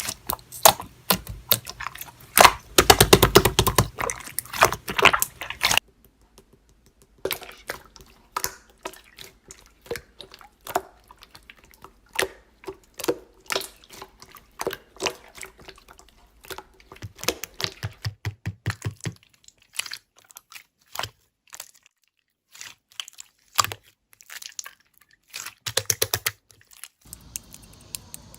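Slime being pressed and pulled by hand, making a run of sharp sticky clicks and small wet pops. The clicks are dense and loudest for the first six seconds, then come sparser in small clusters after a short pause.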